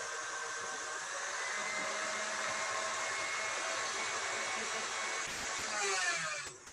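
Electric stand mixer running steadily as it whips cream cheese, a motor whine over the whirr of the beater; it switches off near the end.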